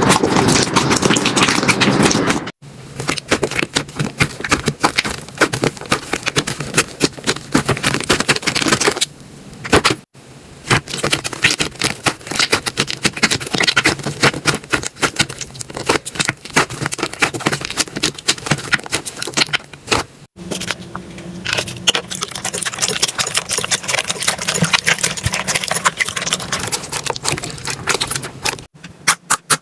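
Slime being squeezed and poked by hand, a dense run of small crackling clicks and pops. It changes abruptly a few times as one slime gives way to another, with a quick even run of clicks near the end.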